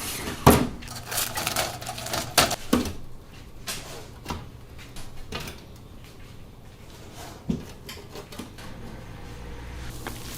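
Metal cookware clattering and knocking as it is handled: the loudest knock comes about half a second in, then a quick run of taps and clacks over the next couple of seconds, and a few single knocks later on.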